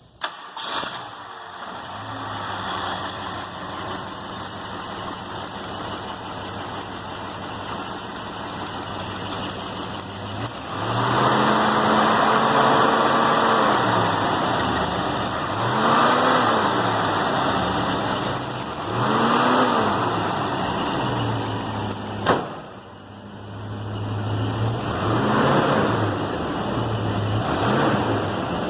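1970 Ford Mustang Mach 1's 428 Cobra Jet V8 starting and catching within a second, then idling. It is revved several times: one long rev about 11 s in, then four shorter blips, the pitch rising and falling each time. A single sharp crack about 22 s in.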